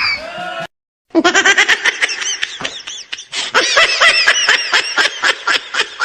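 A rising whistle-like glide ends, then after a brief silence comes a long run of laughter in rapid, high, repeated peals, used as a comedy sound effect.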